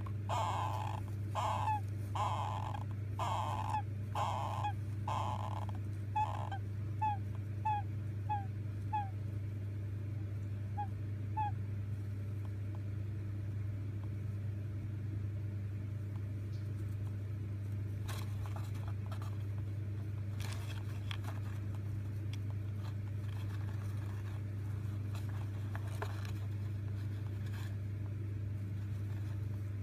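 Baby golden hamster, 18 days old, making rhythmic squeaky calls about two a second, which the owner takes for snoring. The calls shorten into brief, fainter chirps and stop about eleven seconds in, leaving a steady low hum with a few faint clicks.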